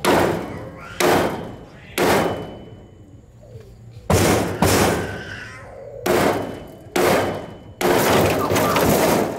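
Hammer blows on the rusty steel tailgate hinge of a 1999 Daewoo mini pickup, about eight strikes roughly a second apart, each with a short metallic ring. Near the end comes a longer burst of metallic noise lasting about a second and a half.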